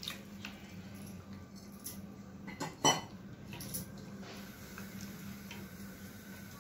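Wooden spatula stirring coconut milk into masala in a nonstick kadai, scraping and tapping against the pan several times, the loudest knock about three seconds in.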